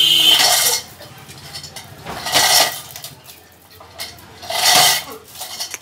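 Metal chain clanking and rattling through a hand-operated chain pulley block on a wooden tripod, as the hand chain is hauled to lift pipe and a submersible pump out of a borewell. It comes in three loud bursts a little over two seconds apart, one with each pull.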